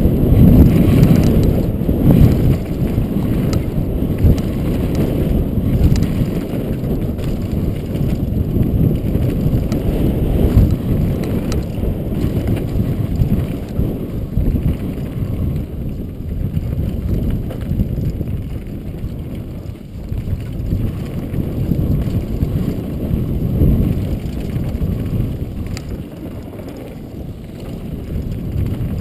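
Downhill mountain bike running fast over a rough, rocky dirt trail, with steady rushing wind noise on the helmet-mounted microphone and the bike's rattles and knocks over stones.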